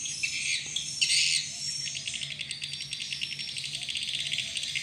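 Small birds chirping, then from about two seconds in a fast, even high-pitched trill that carries on. A faint steady low hum sits underneath.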